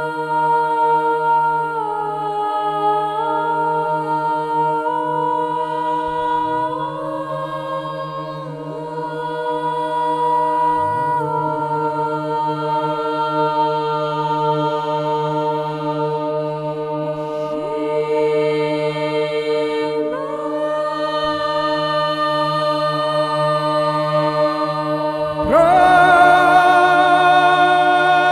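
Unaccompanied Orthodox church chant: a steady low drone held beneath a slowly moving sung melody, with more voices coming in louder near the end.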